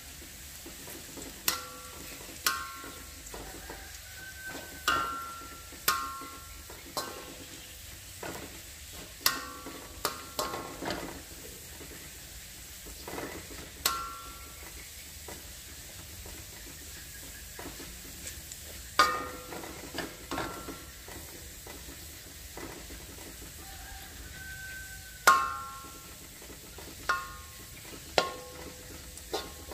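Metal spatula scraping and clanking against a wok while stir-frying minced garlic. It strikes irregularly, about once every second or two, and each strike leaves a short metallic ring. A faint steady sizzle runs underneath.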